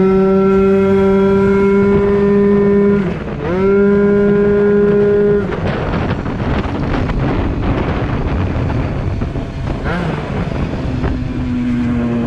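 Yamaha Aerox scooter's two-stroke engine, fitted with a Polini 70cc cylinder kit and a Yasuni C16 expansion pipe, accelerating hard. The note climbs sharply and then holds one steady high pitch as the CVT keeps the revs up. It eases off briefly about three seconds in and climbs back, then drops away at about five and a half seconds into a rushing noise. A rising note returns near the end.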